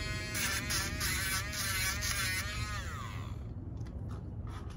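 Handheld rotary nail grinder (Dremel) running against a dog's nail, a high buzzing whine that wavers in pitch as it grinds. About three seconds in it is switched off and its whine glides down as the motor spins to a stop.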